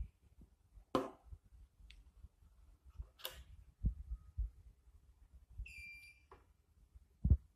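Scattered light knocks and two brief rustles of handling, with one short electronic beep about six seconds in and a low thump near the end.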